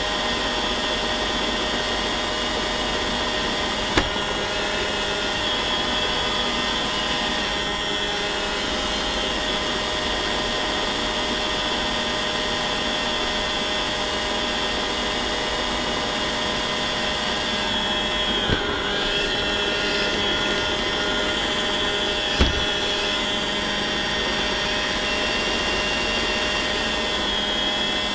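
iRobot Roomba robot vacuum running, heard close up from a camera riding on it: a steady whir of its vacuum motor and brushes with a whine on top. Three short knocks break in, at about four seconds, past the middle and near three-quarters through.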